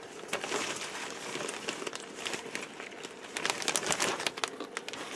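A bag of small craft flowers crinkling and rustling as a hand rummages through it, a steady crackle of many small clicks.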